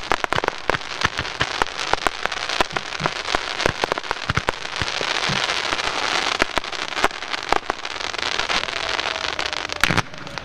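Fireworks going off: a dense, continuous crackle of many small sharp pops from gold crackling stars, with a few louder reports near the end.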